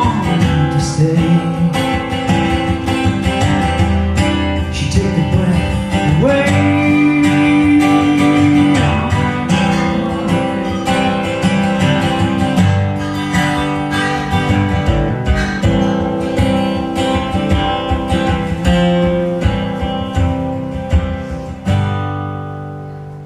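Instrumental song outro led by acoustic guitar, strummed and picked; near the end a final chord is struck and left ringing, fading away.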